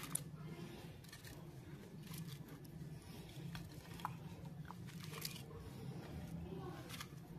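Faint crisp rustles and light taps as pieces of crispy fried chicken liver are set down by hand on a ceramic plate, a few scattered clicks over a low steady hum.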